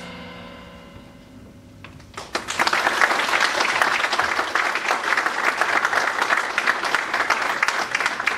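The last chord of a wind band fades away in the hall, then about two seconds in the audience breaks into applause, which carries on steadily.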